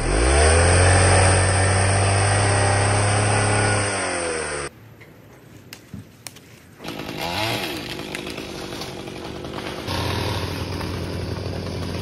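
Gas chainsaw revving up and running hard for about four seconds, then cutting off suddenly. After a short gap, a fainter chainsaw revs briefly and then runs steadily.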